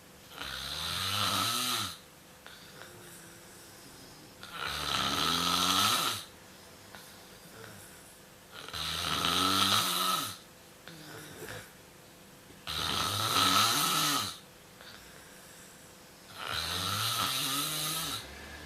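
A sleeping pet snoring, five snores in a row about every four seconds, each lasting about a second and a half.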